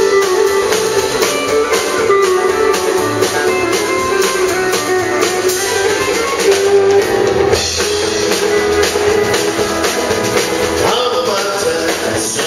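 Live country band playing: acoustic and electric guitars over a drum kit keeping a steady beat.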